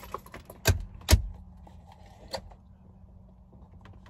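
Two heavy thuds about half a second apart, then a lighter click, as things are handled at a car's centre console and its lid is shut, over a steady low hum in the cabin.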